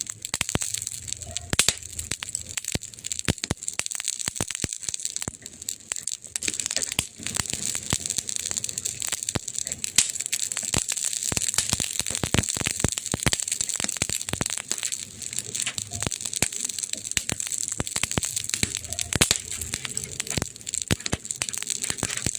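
Burning wood fire crackling: many irregular sharp snaps and pops over a steady hiss.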